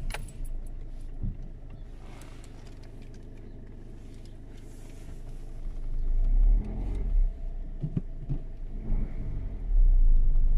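Car engine and low rumble heard from inside the cabin as the car moves off slowly, the rumble growing louder about six seconds in and again near the end.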